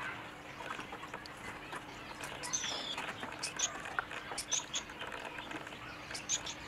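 Small birds chirping: short, high chirps, some sliding downward in pitch, coming in twos every second or so after the first couple of seconds.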